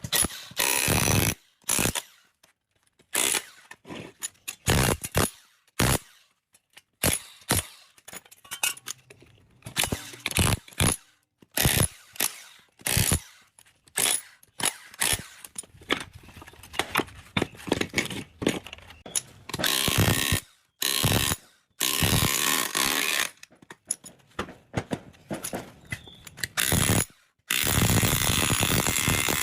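Tools working on the metal of a three-phase induction motor as it is dismantled: many short bursts of clanking, rattling tool noise, with longer runs of steady tool noise, one a couple of seconds long near the end.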